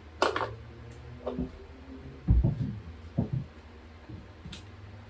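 A few knocks and thumps from handling a cut drywall piece, the loudest a heavy thump about two and a half seconds in, over a low steady hum.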